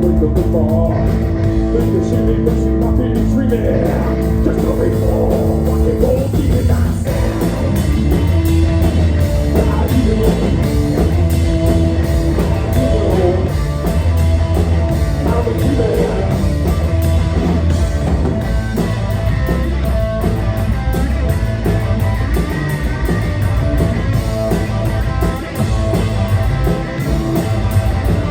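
Loud live punk rock from a band with electric guitars and bass, playing steadily through a song.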